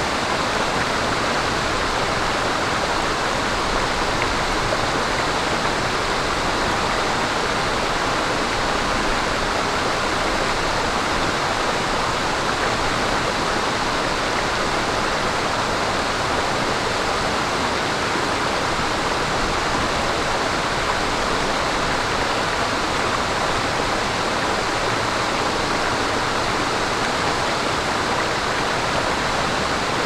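Stream water babbling over rocks: a steady, even rush of flowing water.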